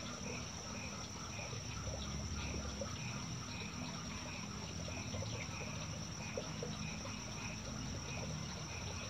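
Night chorus of frogs calling in short repeated notes, about two or three a second, over a steady high insect trill.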